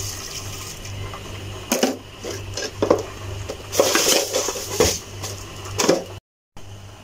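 Steel ladle stirring milky tea in a stainless steel pot, scraping and clinking against the pot in several separate strokes, over a steady low hum.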